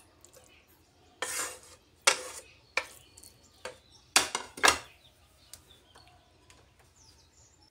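Wooden spatula scraping and knocking against a metal frying pan while cooked vegetables are stirred: about five short strokes, the loudest two about four seconds in.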